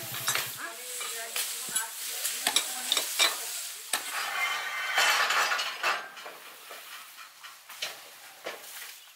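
Scattered metallic clicks and knocks of hand tools on light steel rails, with a louder stretch of rough scraping about halfway through.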